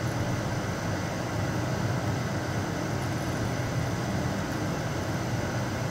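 CNC lathe running with its spindle turning a workpiece in the chuck: a steady, even machine hum.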